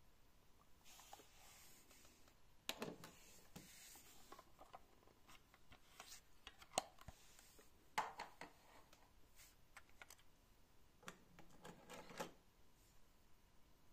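Small clicks and light plastic clatter as a cassette is handled at a Pioneer CT-939 cassette deck: the cassette door opening, a Maxell MX 90 cassette taken from its case and slid into the door holder. One sharp click about halfway through is the loudest, and a quick run of small rattles comes near the end.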